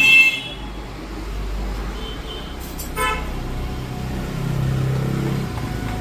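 Street traffic: a short vehicle horn toot at the start and another brief toot about three seconds in, then the low engine rumble of a passing vehicle swelling and fading near the end.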